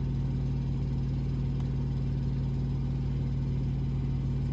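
Truck engine idling: a steady, even low hum with no change in speed.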